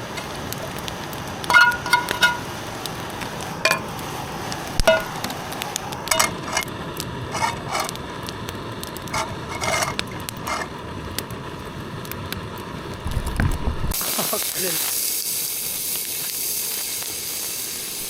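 Campfire breakfast cooking: a run of sharp clicks and short ringing clinks, then about fourteen seconds in a steady high sizzling hiss of bacon frying takes over.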